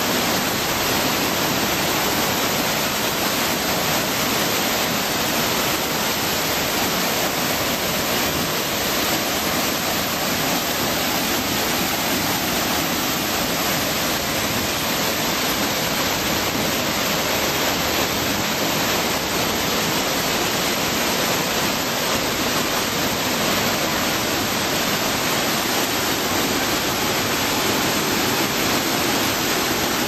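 Waterfall: water falling down a cliff face and splashing on rocks, a steady, unbroken rush.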